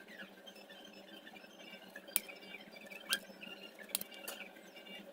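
A few light, sharp clicks and taps, four in the later half, over faint high chirping.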